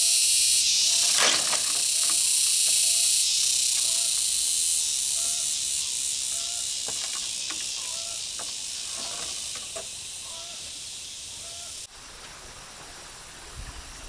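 A loud, steady high-pitched buzzing hiss that fades slowly and cuts off suddenly about twelve seconds in. Beneath it, a short call repeats about every two-thirds of a second.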